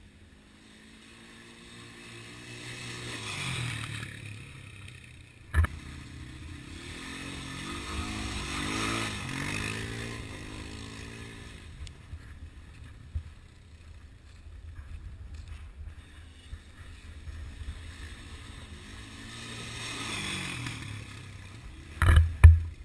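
Polaris ATV (quad bike) engine revving up and easing off several times as it is ridden through mud and puddles. Its pitch rises and falls with each swell. A few loud thumps come near the end as it passes close.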